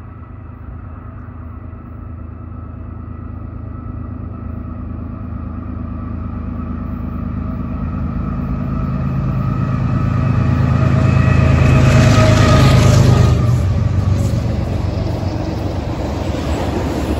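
CN ES44AC diesel-electric locomotive leading a double-stack intermodal train: its engine rumble grows steadily louder as it approaches and is loudest as it passes beneath about 12 seconds in. After that come the container cars rolling by, with steel wheels on the rails.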